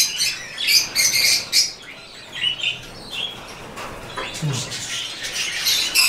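Budgerigars chirping and chattering in a flurry of short high chirps. The chirps are thickest in the first two seconds, thin out in the middle and build up again near the end.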